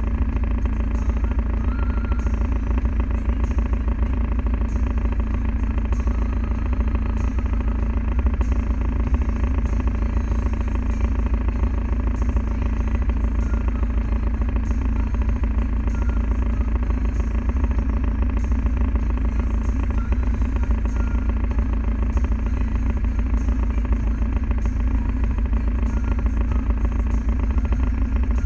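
Land Rover Defender diesel engine running steadily at an unchanging pitch, with a faint light tick repeating about once a second.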